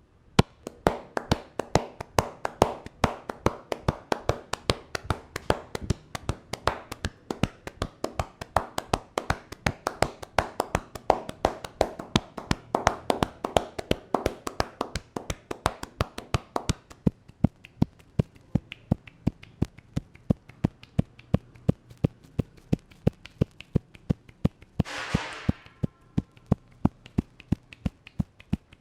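Barber's hands tapping and slapping on the head in a percussive head massage, a steady rapid rhythm of several strikes a second. About 25 seconds in there is a brief hiss.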